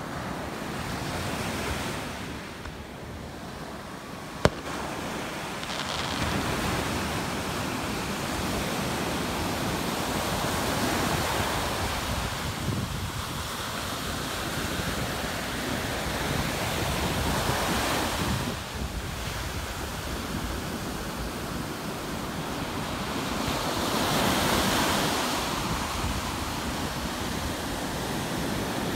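Surf washing ashore: a steady rushing noise that swells and eases every six or seven seconds. A single sharp click comes about four seconds in.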